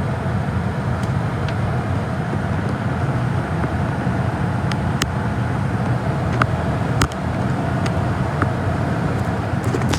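Gas furnace running, a steady low rumble of burner and blower, with a few sharp ticks scattered through it.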